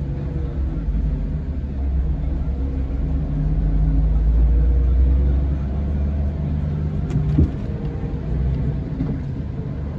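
Scania K410 coach's 13-litre six-cylinder diesel engine running with a low rumble that swells about midway and then eases, with a short knock about seven and a half seconds in.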